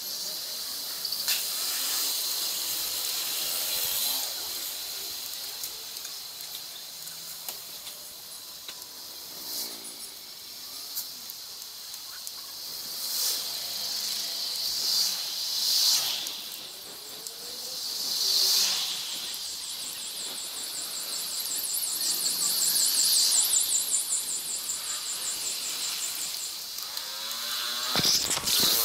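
Street and wind noise from a bicycle-mounted action camera, sped up three times so it comes out as a high-pitched hiss. The hiss swells and fades several times and carries brief squeaky gliding sounds.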